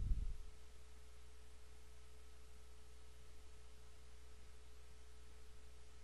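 Faint steady electrical hum with a thin, steady tone running through it: background noise of the recording. A brief low bump comes right at the start.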